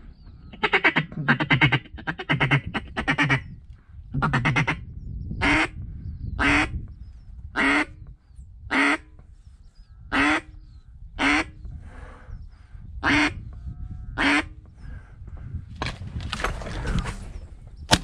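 Mallard-hen quacking, loud and close: a quick run of about five quacks, then single quacks about one a second. A single sharp shotgun blast comes right at the end.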